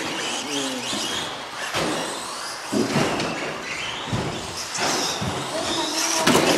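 Electric RC short-course truck running on the track, its motor whining up and down in pitch, with several sharp knocks as it hits the track. A voice is briefly heard near the start.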